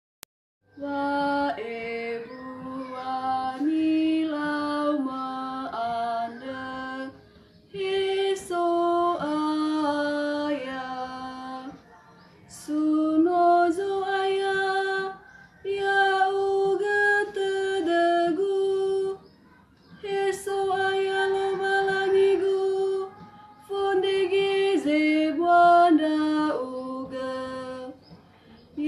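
A young woman singing a psalm chant solo in the Nias language. She sings in short phrases of a few seconds with brief pauses for breath between them, starting about a second in.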